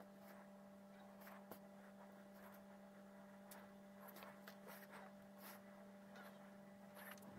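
Near silence: a faint steady electrical hum with a few faint small ticks.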